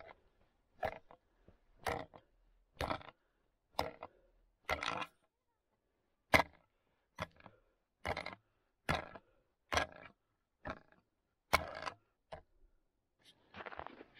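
Steel chisel tip of a hand-forged ice spud chopping down into lake ice to test it: about a dozen sharp blows, roughly one a second, with a short pause midway. Near the end, boots crunch in the snow.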